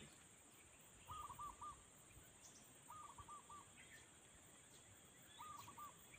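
Faint bird calls: three short phrases of about four quick notes each, roughly two seconds apart, over a steady high insect buzz.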